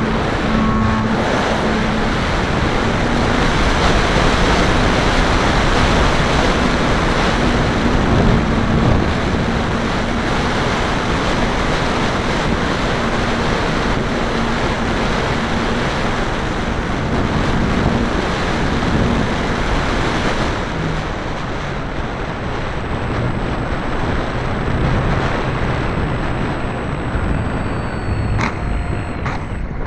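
Wind rushing over an onboard camera microphone on an electric RC biplane in flight, with the electric motor and propeller running as a faint steady hum. After about twenty seconds the hum fades and the rush softens as the plane comes down low; a few brief knocks near the end.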